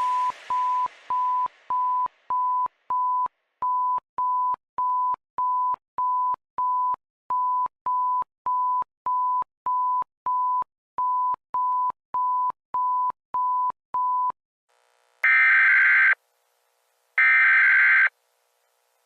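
Electronic emergency-alert tones: a run of short, identical high beeps at one steady pitch, about two a second, in groups of seven with brief pauses between the groups. Then two harsh one-second buzzer-like blasts follow, a second apart.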